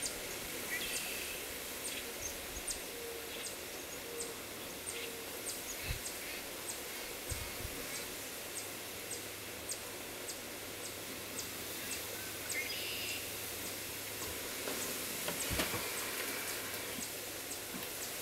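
Outdoor wetland ambience: a steady hiss, with a short high chirp or tick repeating about twice a second throughout and a few other brief bird chirps. A few soft low bumps.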